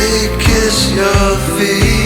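Background song: a band with a steady drum beat, with a singing voice.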